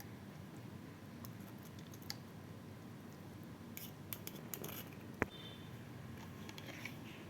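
Light clicks and taps of kitchen utensils against a dish, scattered and irregular, with one sharper click about five seconds in, as the liquid is taken from the steamed apples.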